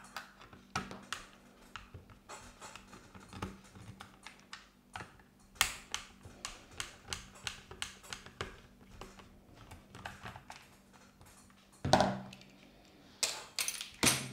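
Light, irregular clicks and taps of a hand screwdriver working the screws out of an oscillating multi-tool's plastic rear cover, with small knocks of plastic and metal parts being handled. There is a louder knock about twelve seconds in and a quick run of clicks near the end.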